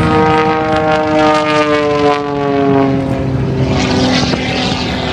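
A propeller airplane flying past, its engine and propeller drone gliding steadily down in pitch over the first few seconds, then settling into a noisy rush.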